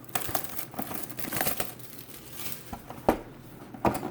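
Plastic wrapping crinkling and tearing as a sealed trading-card hobby box is opened, with two sharp knocks of the box being handled about three and four seconds in.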